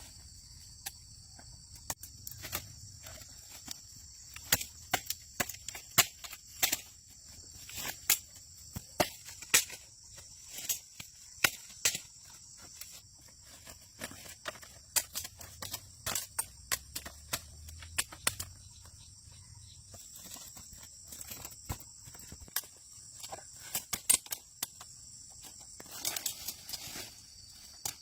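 Steady high-pitched chirring of insects, with many irregular sharp clicks and knocks scattered throughout, a few of them much louder than the rest.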